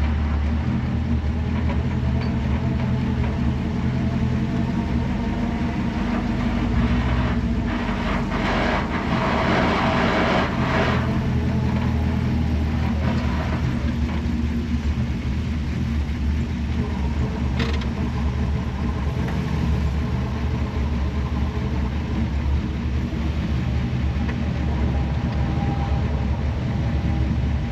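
Chevrolet 454 big-block V8 of a 1964 Impala running steadily, with a rush of noise about eight to eleven seconds in.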